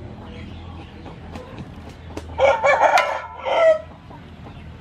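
A rooster crows once, loudly, starting about two and a half seconds in and lasting about a second and a half, over a few faint clinks of a metal spatula in a wok.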